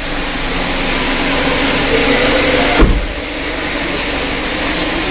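Maruti Suzuki Ertiga's roof-mounted rear AC blower running steadily with a loud rush of air. Its newly fitted blower motor runs without the vibration and noise that its broken blade used to cause. A single thump comes a little under three seconds in.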